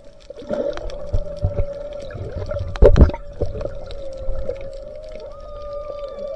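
Humpback whale song heard underwater: a long steady moan with shorter falling cries around it. A loud thump comes about three seconds in.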